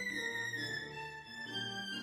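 Classical background music led by a violin, moving in long held notes.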